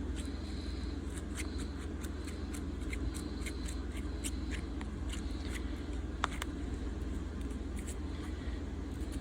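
A thin metal blade scraping and clicking along the edge of a smartphone's glued back glass, cutting through the adhesive in many short ticks, with one sharper click about six seconds in. A steady low hum runs underneath.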